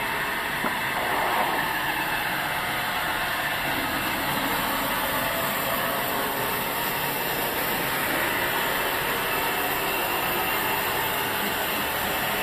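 Sawmill machinery running steadily, with a brief louder patch about a second in.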